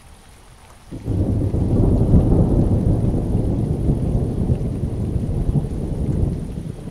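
Rain falling, with a loud, deep rumble of thunder that breaks in suddenly about a second in and rolls on.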